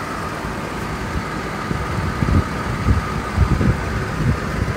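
Toyota Tacoma pickup idling with a steady engine hum, with irregular low buffeting on the microphone from about two seconds in.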